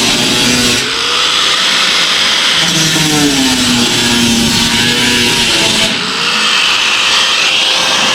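Background music with sustained guitar notes that bend in pitch.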